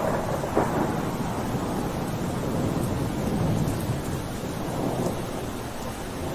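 Steady rain falling, with a low rumble that swells and fades about three to four seconds in.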